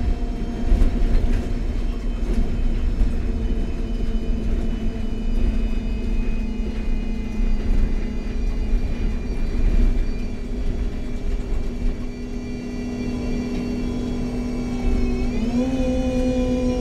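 MAN Lion's City G NG313 CNG articulated bus under way, its engine and Voith automatic gearbox giving a steady whine over a low rumble. About fifteen seconds in, the whine rises in pitch and then holds.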